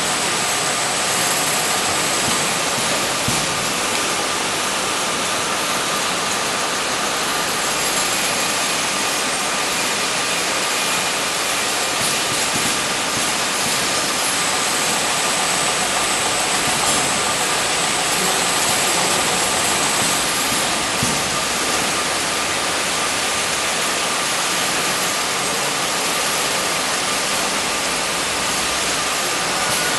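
Automatic piston-type oil filling machine and its bottle conveyor running: a steady mechanical whir with a thin, steady high tone running through it.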